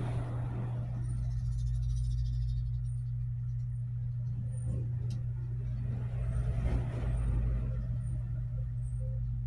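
A steady low mechanical hum with a deep rumble under it.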